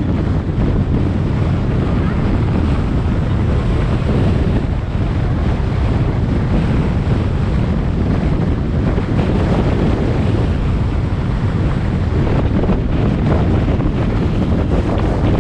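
Steady wind buffeting the microphone of a camera on a moving car, with tyre and road noise beneath it.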